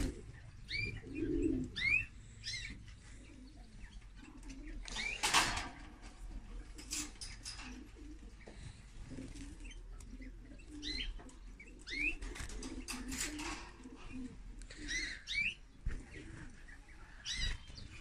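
A canary giving short rising call notes, one at a time and a second or several apart, with a brief louder rustle about five seconds in.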